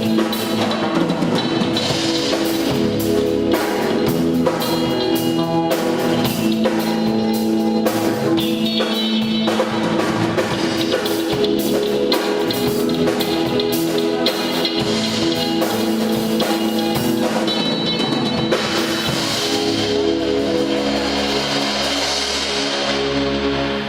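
Band playing an instrumental passage: a drum kit keeping a steady beat under sustained held chords.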